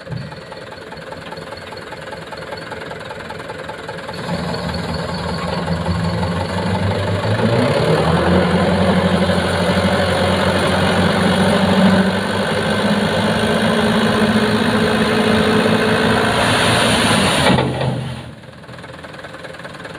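A loaded dump truck's diesel engine running, rising in speed a few seconds in and held high while the hydraulic hoist tips the bed. Near the end comes a rush of sand and gravel sliding out of the bed, and the engine then drops back to idle.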